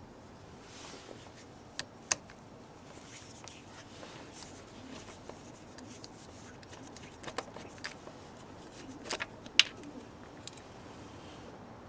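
Short, sharp clicks and taps of a Torx screwdriver being fitted into and turning a screw in a plastic bracket, then the screw being pulled out by hand. There is a pair of clicks about two seconds in and a cluster of louder ones near the end.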